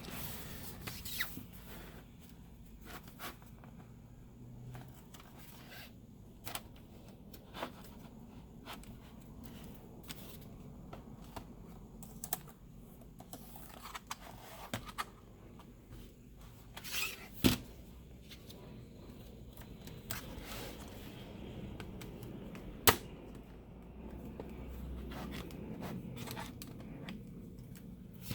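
Scattered light plastic clicks and scraping as an HP Stream laptop's plastic case is handled and pried apart, with a few sharper clicks along the way.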